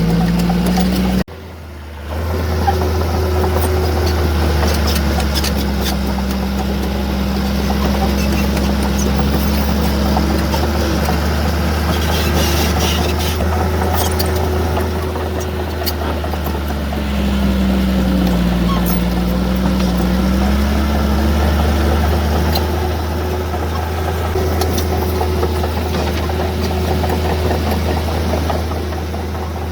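Heavy diesel earthmoving machine engine running under load, its pitch rising and falling slowly. There is a brief drop about a second in, and scattered clanks and knocks around the middle.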